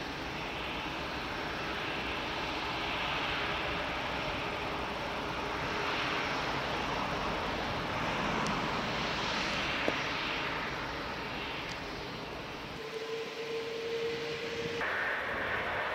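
Airbus A380's four Rolls-Royce Trent 900 jet engines running as the airliner taxis, a steady whoosh with a faint whine. About thirteen seconds in the low rumble drops away and a higher whine stands out.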